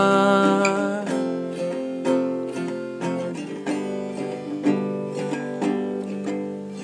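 Acoustic guitar strumming and picking a gentle passage of a song; a long held note stops about a second in, leaving the guitar on its own.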